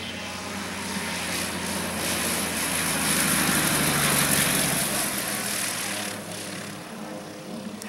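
A Van's RV-10 light aircraft's piston engine and propeller at low power as it flies low past on landing. The sound swells to its loudest about three to four seconds in as the plane passes close, then drops off about six seconds in as it moves away down the runway.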